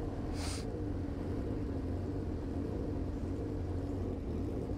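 Several motorcycle engines idling steadily while stopped together. A short hiss cuts in about half a second in.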